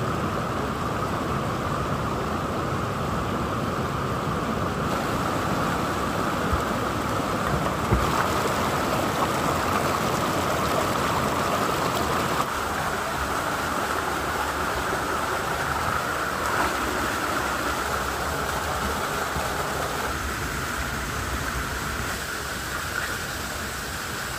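Steady rush of flowing stream water, even and unbroken, easing off slightly in the last few seconds.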